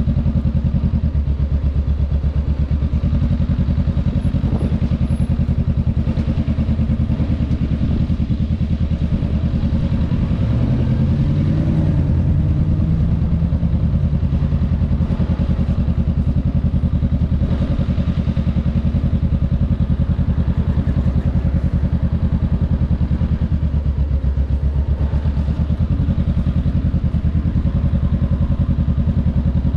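Honda Rebel 500's parallel-twin engine running at low revs with a steady pulse. A brief tone rises and falls in pitch about halfway through.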